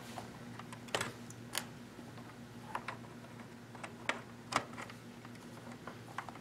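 Faint scattered plastic clicks and taps, about half a dozen, as a pre-wired pluggable terminal block on a network cable is handled and pushed into the gray Onyxx network terminal socket of a DIN-rail controller IO module.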